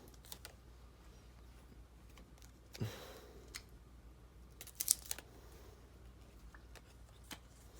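Faint, scattered clicks and taps of small number pieces being worked out of their sheet by hand, with a small knock about three seconds in and a quick run of clicks around five seconds.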